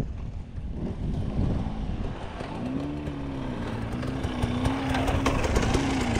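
Enduro dirt bike engine revving, its pitch rising and falling repeatedly from about two and a half seconds in, over uneven rumbling noise with a few knocks.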